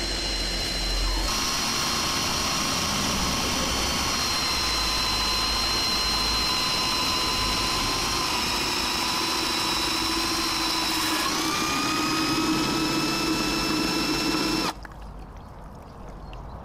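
Electric drill spinning a 3D-printed lobe water pump, a steady motor whine over the hiss of the spraying water jet. The pitch dips slightly about 8 s in and steps up about 11 s in. The sound cuts off suddenly about 15 s in.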